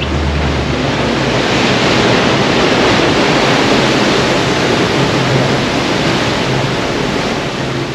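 Water rushing and churning between a pilot boat and a ship's hull as the boat runs alongside, with a low steady engine hum underneath. The rush grows louder about a second in.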